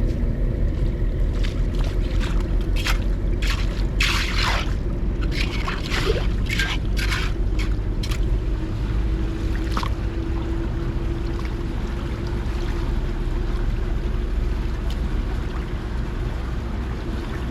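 Floodwater rushing and splashing at a culvert, over a steady low rumble, with a cluster of sharp splashes a few seconds in.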